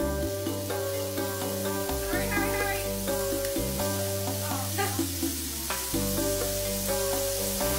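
Food sizzling on a hot flat-top griddle, a steady hiss, under background music with a repeating bass line.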